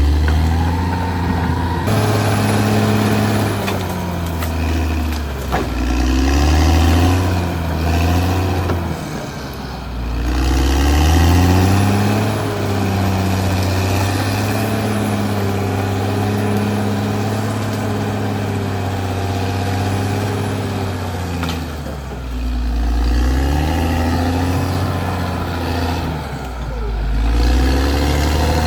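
Caterpillar D6R XL bulldozer's diesel engine working under load. Its pitch swells and drops again several times as the load changes.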